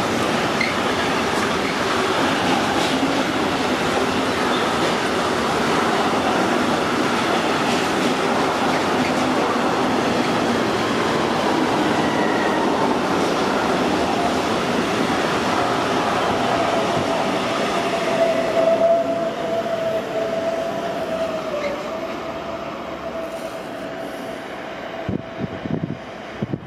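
Long intermodal freight train, its wagons loaded with semi-trailers and containers, rolling past at speed with a steady rumble of wheels on rail. A drawn-out, high wheel squeal joins about two-thirds of the way through, then the noise fades as the end of the train moves away.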